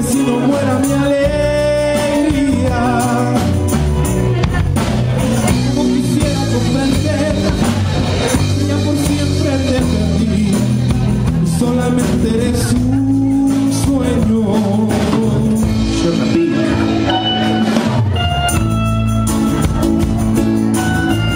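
Live band music played loud and steady, with acoustic guitar, congas and drum kit under a gliding sustained melody line.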